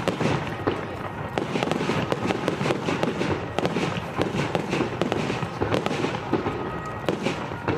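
Fireworks display going off: a dense, continuous run of crackling pops and bangs, many each second.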